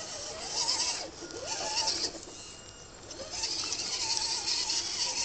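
Electric motor and gears of an RC scale crawler whining in bursts as it climbs a muddy slope, the pitch wavering up and down with the throttle. There are three bursts: one about half a second in, one around a second and a half, and a longer one from about three seconds in.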